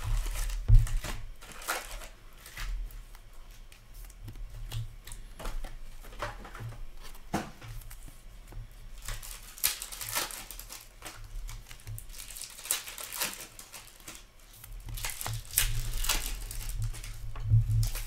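Upper Deck hockey card packs being torn open and their wrappers crinkled, with cards being shuffled and handled: irregular rustling, crinkling and small clicks, busiest about ten seconds in and again near the end, over a low steady hum.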